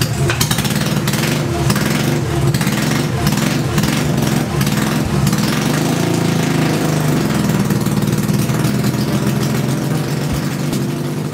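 Yamaha XS650 chopper's air-cooled parallel-twin engine running just after a cold start, a little uneven for the first few seconds, then steadier.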